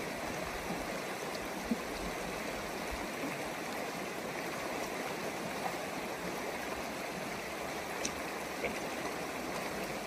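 Shallow river rushing and rippling over rocks in a steady, even flow, with a few faint ticks.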